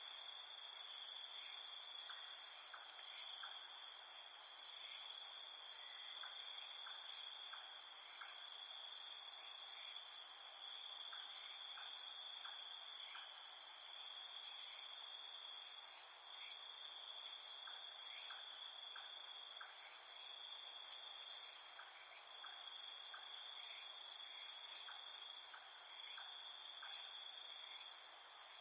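Steady chorus of crickets and other insects: a shrill, unbroken high trilling, with a lower chirp repeated in short groups of three or four every couple of seconds.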